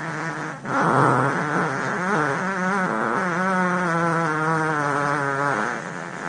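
Fart sound effects: a short one, a brief break about half a second in, then one long drawn-out fart whose low pitch wobbles at first and holds steadier later, stopping shortly before the end.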